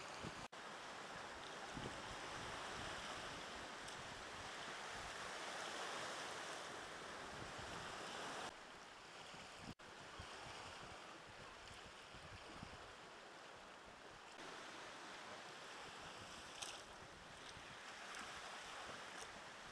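Sea water washing and lapping against coastal rocks at a cave mouth: a steady rushing hiss of surf that cuts out very briefly twice.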